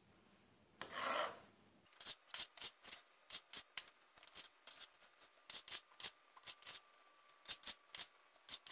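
Kitchen knife slicing cardoncello (king oyster) mushrooms on a plastic cutting board: one rasping cut about a second in, then a run of quick, sharp knife taps on the board, two or three a second.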